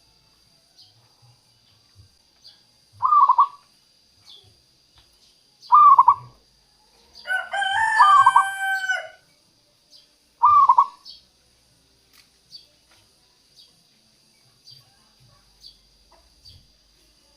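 Zebra dove (perkutut) giving short cooing notes, three of them spaced a few seconds apart, with a rooster crowing once for about two seconds near the middle.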